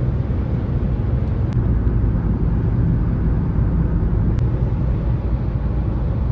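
Steady low rumble of a running vehicle, heavy in the bass, with a few faint ticks.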